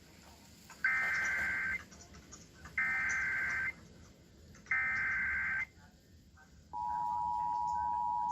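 Emergency Alert System SAME data header: three harsh digital warbling bursts, about a second each and a second apart. About two-thirds of the way in comes the EAS two-tone attention signal, a steady dual tone. Together they announce that a new emergency alert is starting.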